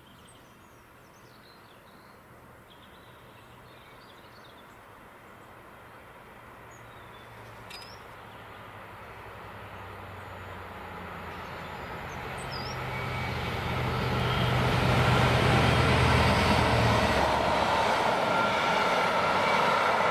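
GBRF Class 66 diesel locomotive 66760, with its two-stroke V12 engine, approaching and passing while hauling an empty steel train. The engine grows steadily louder, peaking about two-thirds in, then gives way to the steady noise of the covered steel wagons rolling past.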